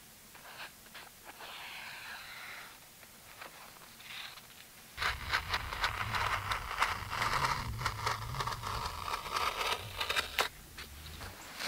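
A round hole being cut out of a fabric pad: dense scraping and crackling of the material being sliced, starting about five seconds in and lasting about five seconds. Before it, faint scratching of a marker drawing the circle on the fabric.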